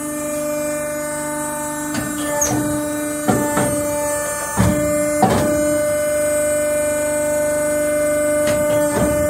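Compacto Fox hydraulic wood-waste briquetting press running just after being switched on: a steady, loud motor-and-pump hum with a high whine over it, broken by a series of irregular clunks and knocks.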